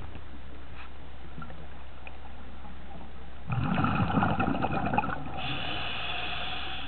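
Underwater sound of a scuba diver's exhaled bubbles burbling from the regulator for about a second and a half, followed by a steadier hiss near the end, over a constant low hum.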